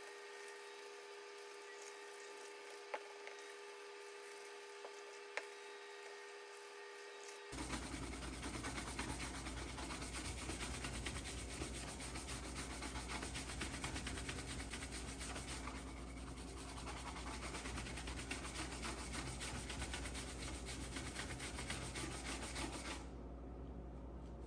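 Horsehair shoe brush buffing cream into a leather shoe in fast, continuous strokes, starting suddenly about seven seconds in. Before that there is only a faint steady hum with a couple of light clicks.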